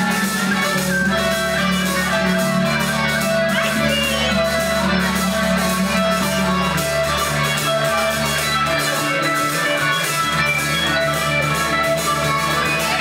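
Live band music: guitar over a steady percussion beat.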